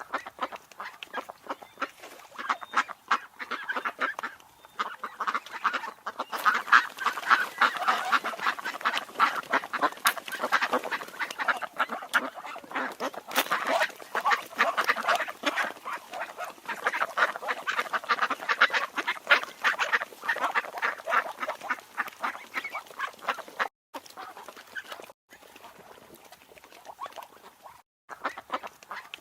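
A flock of ducks quacking, many short calls overlapping in a dense chatter, growing quieter and broken by a few short silent gaps near the end.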